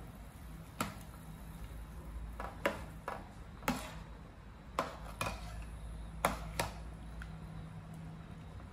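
Metal ladle clinking against the side of a stainless steel pot as pork pieces are stirred in water: a string of about nine sharp, separate clinks, over a steady low hum.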